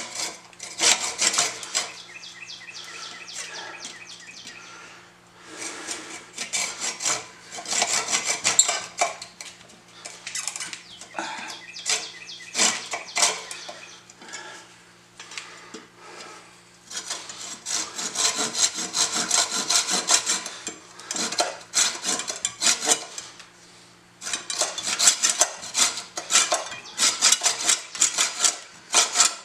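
Coarse-toothed hand saw cutting through an old wooden axe handle at the head, in several spells of quick back-and-forth strokes with short pauses between.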